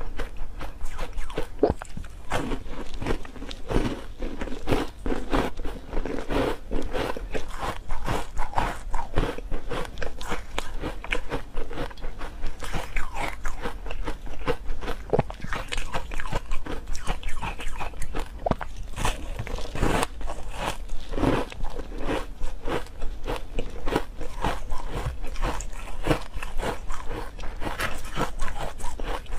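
Close-miked biting and chewing of frozen milk ice: a dense, irregular run of brittle crunches as frozen pieces are bitten and crushed between the teeth.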